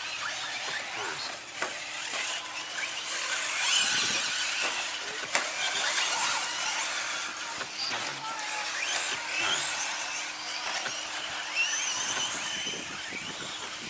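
Several electric short course RC trucks racing, their brushless motors whining up and down in pitch as they throttle on and off, with scattered short knocks from the trucks on the track.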